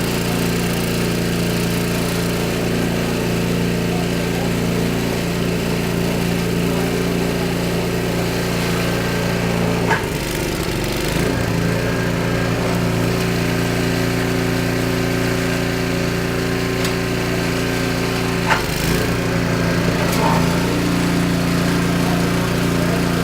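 Snowblower's small gasoline engine running steadily. Two brief knocks come about ten and eighteen seconds in, each with a short dip in the engine note.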